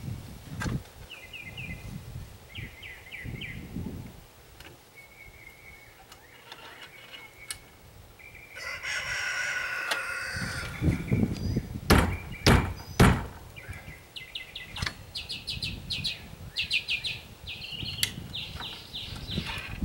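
Birds singing in short repeated chirping phrases, with a rooster crowing once, about two seconds long, near the middle. A few sharp knocks come about twelve to thirteen seconds in, with duller thumps of work on the wooden stand scattered through.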